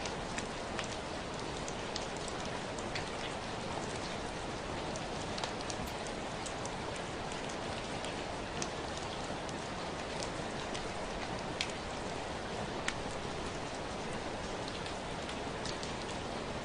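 Steady rain falling, a continuous hiss with scattered sharp ticks of individual drops striking a surface.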